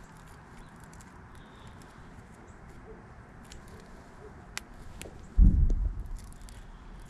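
Faint scattered clicks and scrapes of hand work on an electrical wire being stripped, with one low thud a little past five seconds in.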